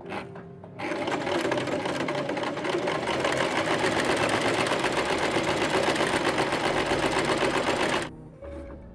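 Sewing machine running a seam with rapid, even stitching, starting about a second in and stopping suddenly near the end.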